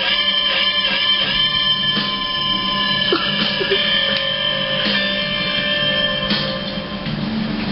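Recorded rock music led by guitar, playing continuously.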